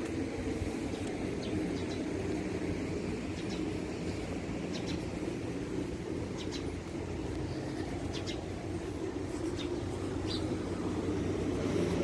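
Steady vehicle rumble with a low engine hum, and a few short, faint high chirps scattered through.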